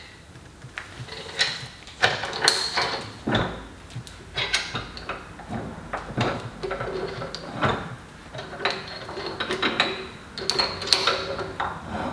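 Irregular metal clanks, knocks and rattles, some with a brief ring, from a cast-iron Wilton Tradesman bench vise being handled and worked by hand.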